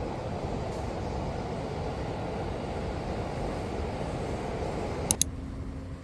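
Steady rushing outdoor background noise, cut off by two sharp clicks about five seconds in.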